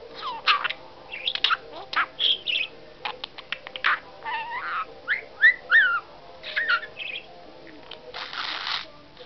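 Pet budgerigar chattering in a quick run of short chirps and gliding whistles, with a harsh, screechy burst near the end.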